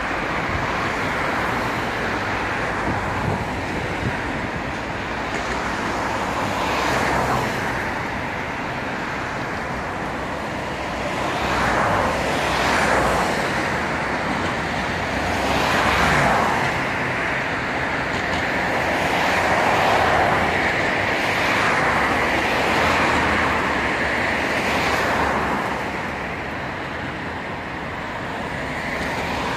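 Steady city road traffic: a continuous hum of cars, with several vehicles passing close by one after another, each swelling and fading.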